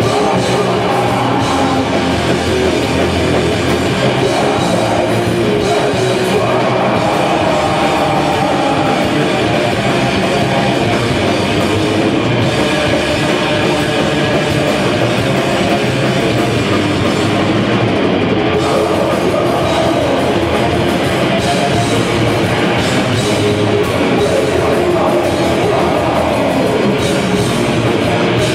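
Heavy metal band playing live: distorted electric guitar over a drum kit, loud and continuous, heard from the audience in a club.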